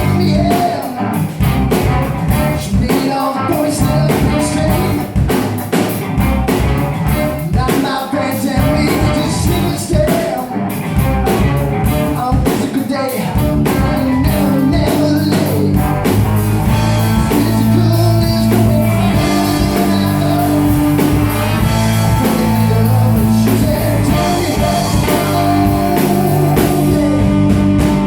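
Rock song with drum kit, guitar and singing. About halfway through, the playing changes from choppy, beat-driven strokes to fuller, held chords.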